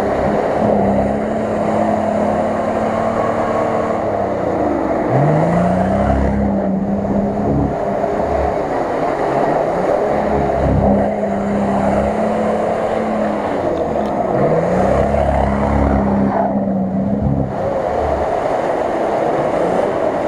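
Off-road SUV engine revving hard as its wheels spin in a deep mud pit, revs rising and held high several times with dips between, over the churn of mud and water thrown by the tyres.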